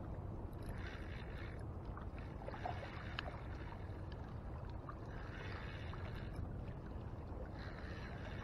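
Wind rumbling on the microphone over water washing against shoreline rocks, the wash swelling and easing every couple of seconds.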